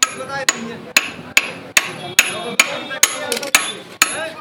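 Hammer blows on a diesel engine's steel timing gear, driving it onto its keyed shaft. About a dozen sharp, even strikes, a little over two a second, with a quicker run of three near the end.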